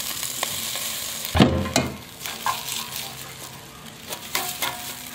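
Raw potato sticks sliding off a paper plate and tumbling into an air fryer's non-stick frying basket, a steady rustling hiss, then a loud knock about a second and a half in and a few lighter knocks and clatters as the fries and basket are handled.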